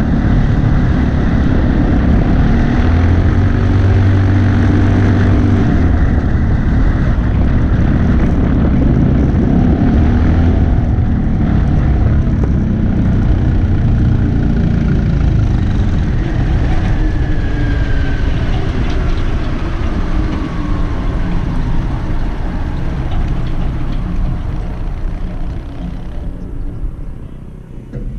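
Junior dragster's single-cylinder engine running at low speed, heard close up from on board the car, with its pitch shifting as the throttle changes. The engine note falls away and quietens near the end.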